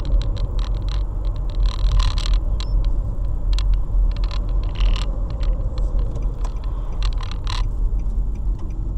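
Car driving, heard inside the cabin: a steady low rumble of engine and tyres on the road, with frequent small clicks and rattles scattered through it.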